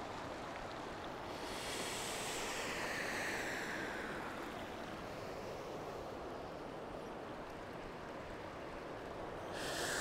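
Steady rush of a mountain river, with a long audible breath out about a second and a half in, lasting some three seconds, and another breath near the end.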